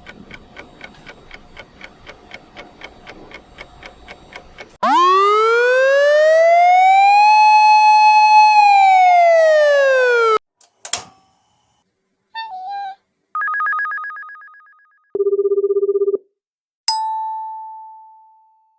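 A string of short stock sound effects: faint, even ticking, then a loud pitched tone that glides up, holds for about two seconds and glides back down like a siren. After that come a sharp click, a short warble, a fading ringing trill, a flat buzzer tone about a second long, and a single ding that fades away near the end.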